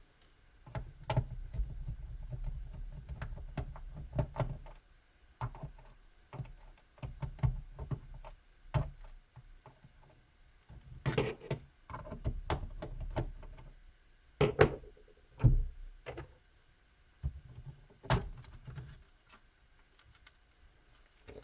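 Small screws being unscrewed from the plastic bottom cover of an Acer Aspire 4810T laptop: many irregular small clicks and taps of a screwdriver and plastic being handled, with stretches of low rumbling handling noise and a few louder sharp knocks in the second half.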